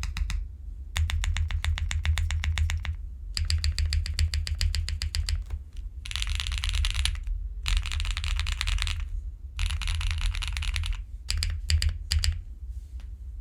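Simpler60 custom mechanical keyboard with lubed, filmed KTT Rose linear switches and GMK keycaps being typed on fast, in bursts of rapid keystrokes a second or two long with brief pauses between. The strokes thin out to a few single keypresses near the end.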